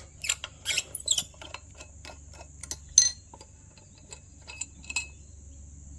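Small metallic clicks and taps from working on the base of an antique candlestick telephone while undoing an old flathead screw. The clicks come quickly at first and then thin out, with one sharper click about three seconds in.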